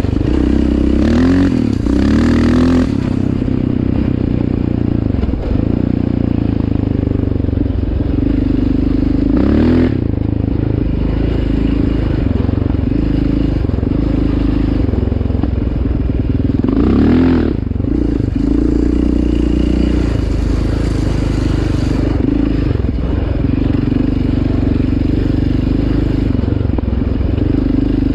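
Yamaha Raptor 700R sport quad's single-cylinder four-stroke engine running steadily while trail riding. The revs rise in short sweeps about a second in, again near ten seconds, and around seventeen seconds.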